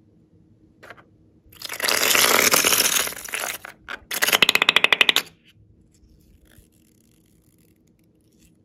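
A balloon filled with blue slime mixture squeezed empty through its neck, air and liquid spurting out: a loud spluttering hiss for about two seconds, then a fast rattling sputter that stops about halfway through.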